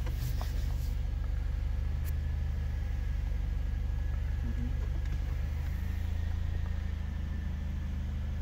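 Mercedes-AMG CLA 45's turbocharged 2.0-litre four-cylinder idling, a steady low hum heard from inside the cabin. The hum shifts slightly in pitch about six seconds in.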